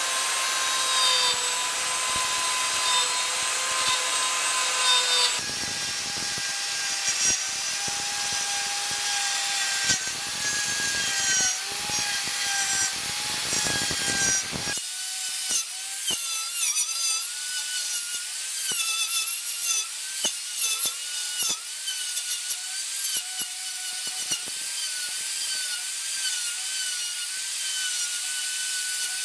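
Electric plunge router running and cutting through oak and epoxy resin: a high motor whine over a rasping cutting noise. The whine shifts pitch about 5 and 15 seconds in and wavers in the later part as the load on the bit changes.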